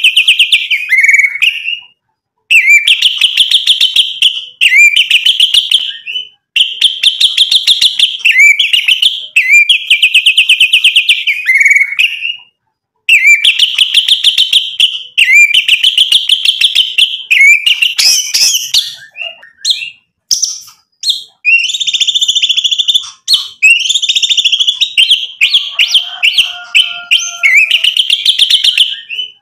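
White-rumped shama singing loudly in a continuous run of phrases. Each phrase is a rapid rattling string of repeated whistled notes lasting a second or two, broken by short pauses, with more varied notes in the second half.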